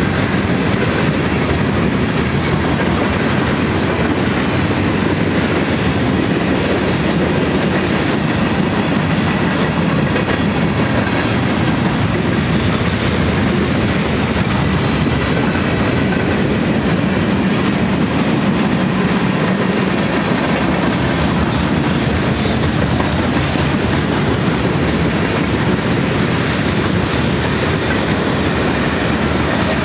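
Freight cars of a mixed manifest train rolling past: the steady rumble and rattle of steel wheels running on the rails.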